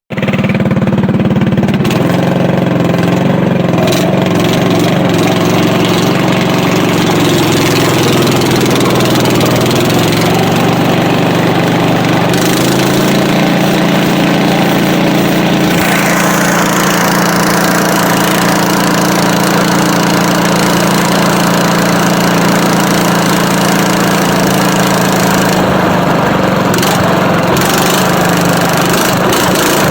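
Predator 212cc single-cylinder four-stroke engine on a Wheel Horse garden tractor, fitted with a Stage 1 kit and a short build-your-own exhaust pipe, running loud and steady. The engine speed shifts about twelve seconds in.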